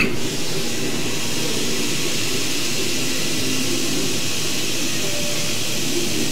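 Steady rushing noise of a fan, with a mouse click right at the start.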